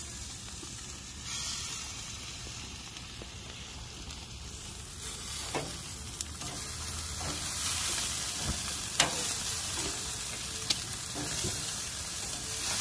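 Mourning dove meat sizzling on a hot grill: a steady frying hiss, with a few sharp clicks and taps in the second half.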